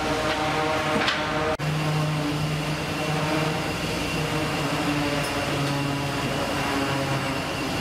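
Machinery of a fish-processing conveyor line giving a steady mechanical hum with a low drone. The sound cuts out for an instant about one and a half seconds in.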